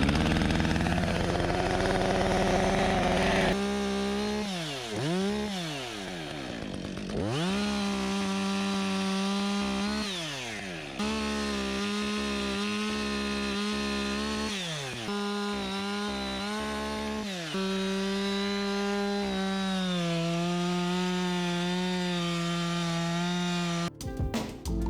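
Two-stroke chainsaw running at high revs, the pitch sweeping down and back up several times as the throttle is let off and opened again, sagging a little under load later on. It cuts off suddenly near the end.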